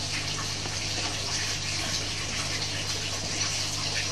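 Steady rushing background noise with a low, even hum underneath.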